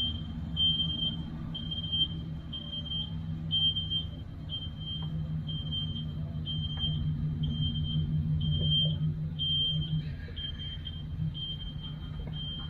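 Electronic warning beeper sounding a high, even beep about once a second, each beep about half a second long, over a steady low hum.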